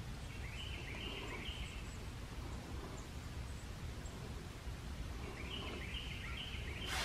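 Faint woodland ambience with a bird giving two short runs of rising chirps, one about half a second in and another near the end. Right at the end comes a short, sharp blast of air: a white-tailed deer doe's alarm snort.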